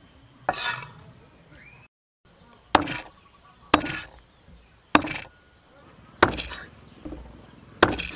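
Meat cleaver chopping eels on a thick wooden chopping block: about six sharp chops, roughly one a second, with a brief break in the sound after the first.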